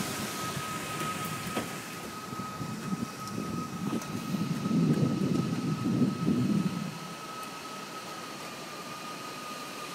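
Strong wind buffeting the microphone in gusts, swelling to its strongest about halfway through and then easing off.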